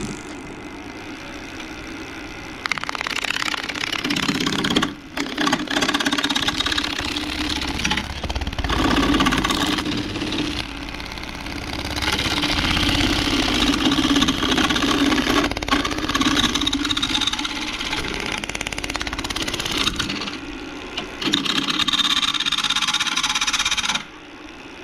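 Wood lathe running with a half-inch spindle gouge cutting into a spinning resin-and-grapevine blank: a steady motor hum under loud, rough cutting noise that starts about three seconds in, breaks off briefly a few times and stops near the end. The gouge is chattering as it goes straight into the blank instead of riding the bevel.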